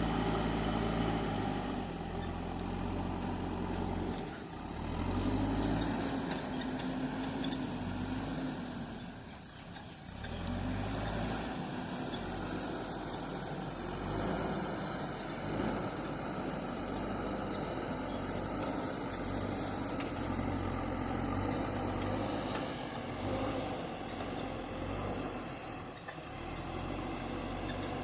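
JCB 3DX backhoe loader's diesel engine running, its pitch rising and falling, with a single sharp click about four seconds in.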